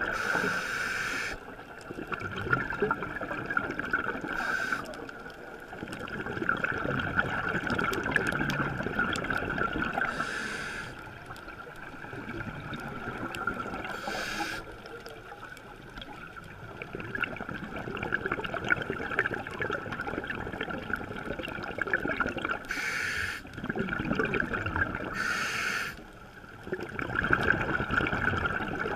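A scuba diver breathing through a regulator underwater: stretches of bubbling exhalation alternate with quieter stretches, and short sharp hisses come every few seconds, about six in all.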